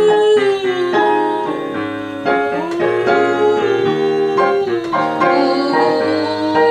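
Digital piano playing chordal accompaniment while a female voice sings a melody over it, the sung notes sliding between pitches.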